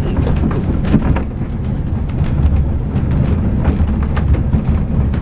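Wind buffeting the microphone: a steady low rumble with scattered faint clicks.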